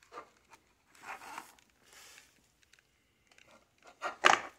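Clear plastic display case of a model locomotive being picked up and handled: a few short scraping, rustling sounds, the loudest near the end.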